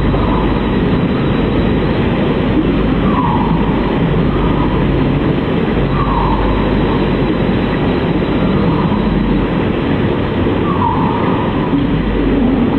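Dense, steady, heavily processed noise with a low rumble, over which a short falling tone recurs every few seconds.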